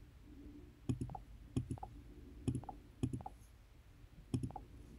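Computer mouse button clicking five times, each click a quick press-and-release pair, about one every second, over faint room noise.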